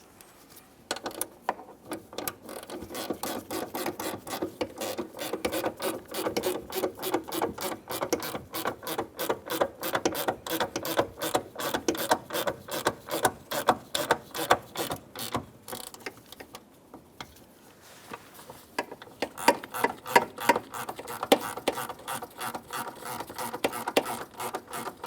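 Hand ratchet wrench clicking in rapid, even runs as the door hinge mounting bolts are run in. There are two long runs with a pause of about two seconds in the middle.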